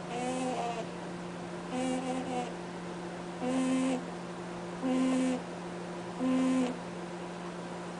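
Pet rabbit snoring in its sleep: five short honks, one with each breath, about every second and a half.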